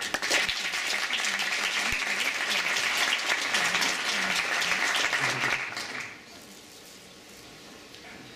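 Audience applauding, starting suddenly and dying away about six seconds in.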